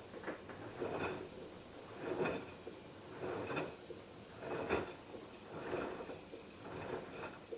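LG F10B8QD1 direct-drive front-loading washing machine drum turning in a wash cycle, wet laundry tumbling and swishing in the water with a regular surge about every second and a quarter. The rhythm stops at the end as the drum pauses.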